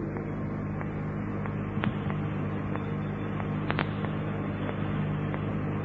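Steady low hum and hiss of an old lecture-hall recording, with a few faint clicks about two seconds in and near four seconds in.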